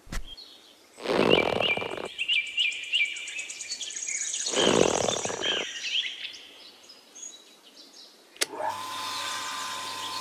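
Small birds chirping over and over, with two bursts of rushing noise a few seconds apart. Near the end, a sharp click is followed by a steady hum.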